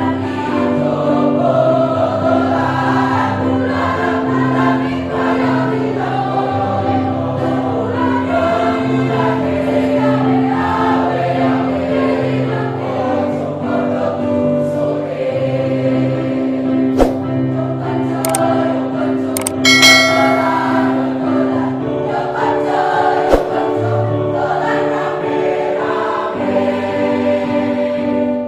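A choir singing a piece in harmony, with held chords over a steady low part. A few sharp clicks cut in about two-thirds of the way through.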